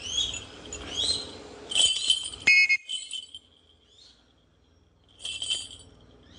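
Shikra calling with short, sharp, high-pitched calls: rising calls at the start and about a second in, a louder run of calls around two seconds in, and another call near the end. A sharp knock comes about two and a half seconds in.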